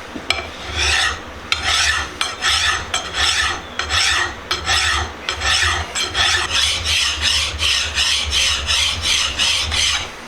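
A hand file rasping over the top face of an anvil vise in steady back-and-forth strokes, about two a second, flattening the pitted surface.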